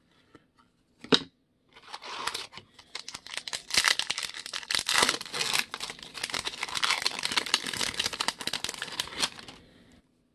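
Foil-lined wrapper of a trading-card pack being torn open and crinkled as the cards are pulled out: a dense run of crackling and tearing from about two seconds in, stopping just before the end, after a single short tap about a second in.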